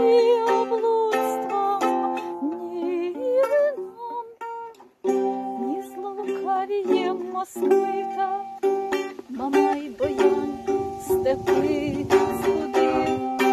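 A small lute-like plucked string instrument playing an instrumental passage of single notes and chords, with a brief break about five seconds in. A low rumble runs under the playing from about ten seconds in.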